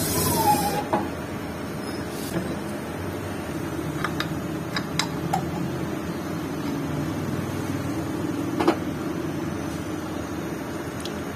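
Lathe running steadily during the rebore of a motorcycle cylinder: a hissing, wavering squeal of the boring cut under coolant stops about a second in, leaving the lathe's steady hum. A few sharp metallic clicks and one louder knock near the end come as the cylinder is handled on the boring bar.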